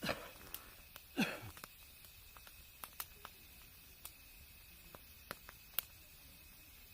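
Wood campfire crackling: scattered sharp, irregular pops of burning wood, with two short sounds falling in pitch, one at the start and one about a second in.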